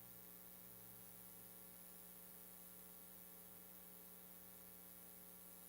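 Near silence, with a faint steady electrical hum in several even tones and a light hiss.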